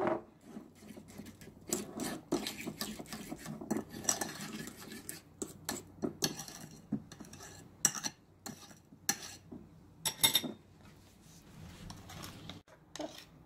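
Metal spoon stirring a thick avocado-yogurt dressing in a ceramic bowl, with irregular clinks and scrapes of the spoon against the bowl. The clinks thin out near the end.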